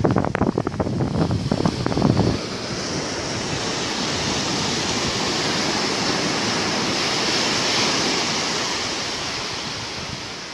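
Sea waves washing up the shore: a steady surf hiss that swells slowly and then fades away. For the first two seconds or so, loud, gusty low rumbling of wind on the microphone lies over it.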